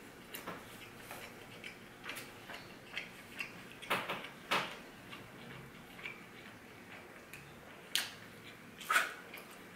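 A person chewing a mouthful of pizza: irregular soft clicks and wet mouth smacks, with a few louder ones about four seconds in and again near the end.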